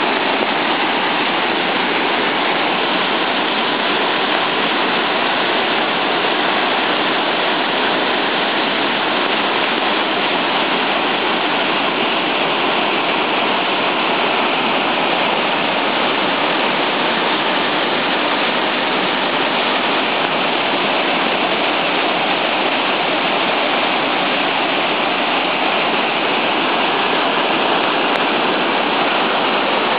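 Flood-swollen creek rushing through a culvert arch: a steady, loud rush of turbulent floodwater, the creek in flood and still rising.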